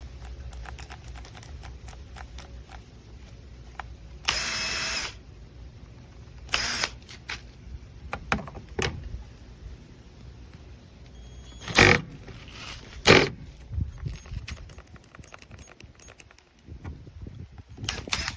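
12V cordless drill being handled, with many small clicks and knocks. It runs in a few short bursts, the longest under a second starting about four seconds in, with shorter ones near seven, twelve and thirteen seconds.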